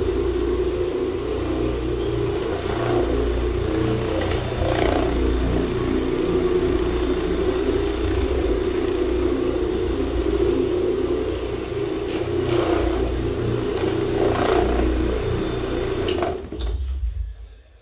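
Electric carpet floor machine running over carpet for low-moisture cleaning, its motor giving a steady hum with a low rumble and brief swells as it is worked across the pile. It shuts off about a second before the end.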